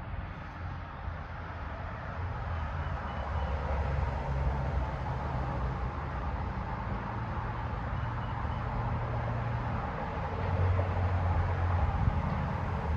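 Hampton Bay Princeton II ceiling fan running: a steady low motor hum under the rush of air from the blades, getting somewhat louder a few seconds in.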